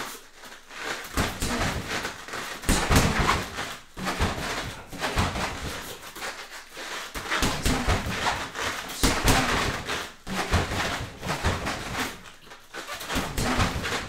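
A person shadowboxing: sharp exhales and grunts with each punch and knee strike, along with bare feet stepping and shuffling on foam floor mats, in quick flurries with short pauses between them.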